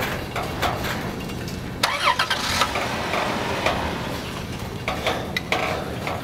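Freight train of covered hopper cars rolling past, a steady rumble broken by irregular clicks and clunks of the wheels on the rails, with a brief high squeal about two seconds in.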